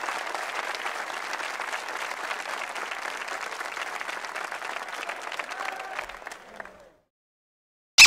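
Audience applauding, many hands clapping together, dying away near the end.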